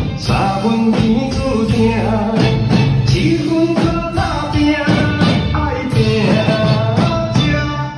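Drum kits played by children in time with a song that has a sung melody: steady drum and cymbal hits under the singing.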